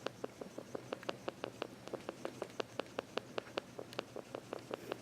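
An animal making a rapid, even series of sharp clicks, about six or seven a second, the strange noise it is known for.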